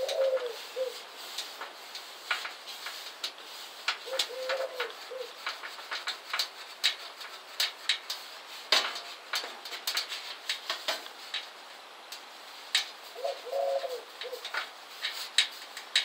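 A fleecy cloth rubbing and buffing the metal reflector of a paraffin heater, with scattered soft clicks and knocks. Short low cooing calls come three times: near the start, about four seconds in, and again near the end.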